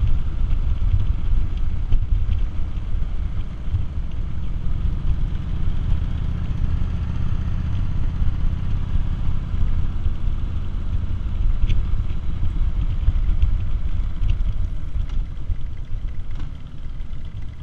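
Harley-Davidson touring motorcycle's V-twin engine running at road speed, a steady low rumble mixed with wind rush over the windshield. It eases off near the end as the bike slows.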